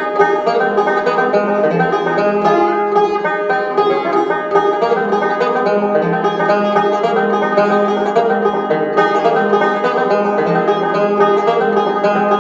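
Solo banjo played with a steady stream of quick picked notes.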